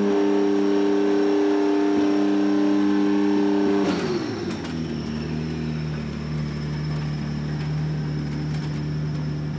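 BMW M4 GT3's twin-turbo 3.0-litre straight-six engine revved up and held at steady revs, dropping about four seconds in to a lower, steady running note.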